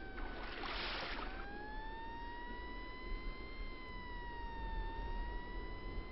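A sustained, siren-like wailing tone that slowly rises and then dips in pitch, over a steady low rumble, with a short burst of hiss about half a second in.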